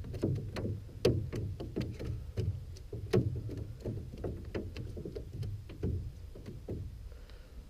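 Irregular light knocks, taps and clatters against the hull of an aluminum jon boat, several a second at first and thinning out toward the end.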